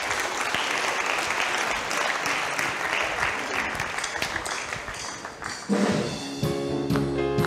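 Congregation applauding, an even clatter of clapping that thins out after about five seconds. About six seconds in, a live worship band starts playing: sustained chords with sharp drum strikes over them.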